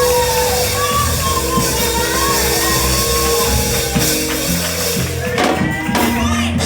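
Church worship music: held chords with voices singing and calling out over them.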